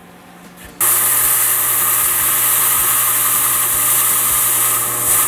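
Compressed air hissing steadily through a clutch hydraulic line fitting while a drill press bores out its orifice, the air clearing fluid out of the line; the hiss starts about a second in, with the drill press motor humming under it.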